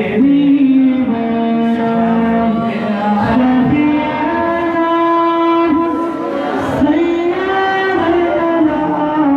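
A man's voice chanting unaccompanied in long, held, melismatic notes that glide up and down, amplified through a microphone and PA.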